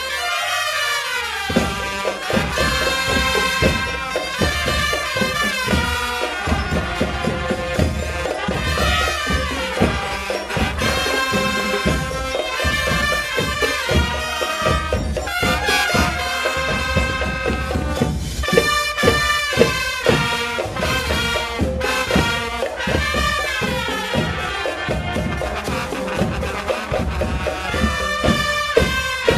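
Marching band playing: brass carrying the melody in sustained notes over a steady drum beat.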